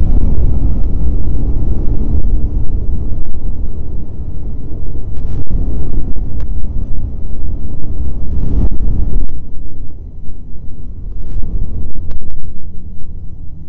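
Snowmobile running along a snowy trail: a loud, steady low rumble, with a few brief knocks.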